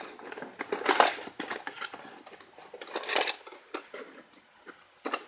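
Steel posi clutch plates and other metal differential parts clinking and rattling together as they are handled, irregular clicks with louder clattering about a second in and around three seconds in.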